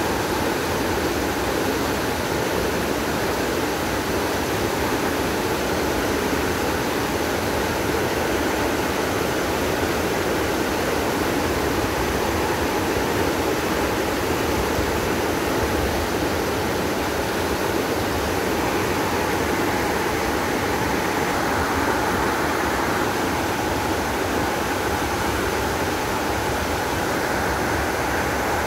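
Waterfall heard up close from below: falling water making a loud, steady, even rush that does not change.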